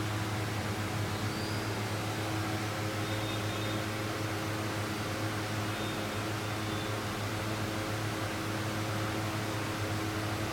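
Steady electric motor hum with an even hiss over it, as of a motor-driven fan or blower running.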